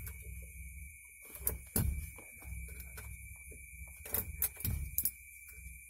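A pointed tool pressing and scraping into a plastic dashboard blank plate to make a hole, heard as scattered sharp clicks: a pair a second and a half in, then three or four close together near the end. Behind them runs a steady high-pitched whine over a low hum.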